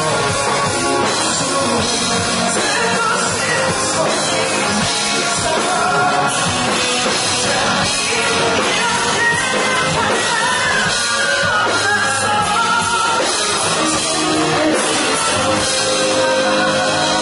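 Rock band playing live, a male vocalist singing over electric guitar and drums.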